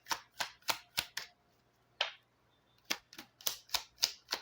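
A deck of cigano (Lenormand) cards being handled: a run of sharp card snaps about three to four a second, a single snap about two seconds in, then another quick run.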